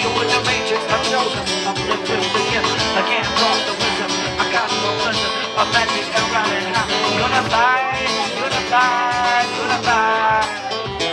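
Live acoustic guitar and drum kit playing a song, with a man's singing voice over them in the later part.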